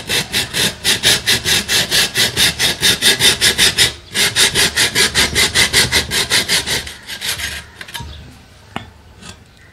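Coarse-toothed hand saw cutting through a lightweight aerated concrete (AAC) block in quick back-and-forth strokes, about four a second, with a brief break about halfway; the sawing stops a little past two-thirds of the way in.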